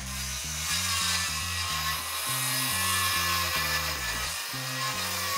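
Corded circular saw running in an aluminium saw-guide track and ripping a long cut through a sheet of MDF, a steady high whine with the hiss of the blade in the board. A bass-heavy music track plays underneath.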